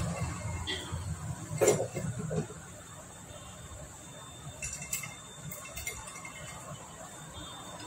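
A vehicle's engine rumble fades out in the first couple of seconds, then light metallic clinks and taps as the cylinder block is worked down over the piston onto a Honda Activa engine: one sharper click early, a few lighter ones later.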